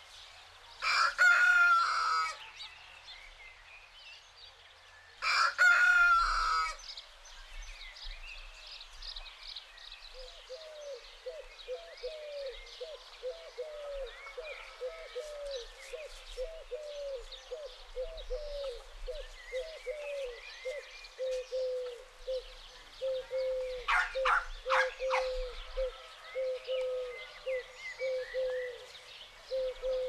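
A rooster crowing twice, about a second in and again about five seconds in. From about ten seconds in, a long run of short, low, falling calls, about two a second, goes on with small birds chirping and a few louder, sharper calls near the end.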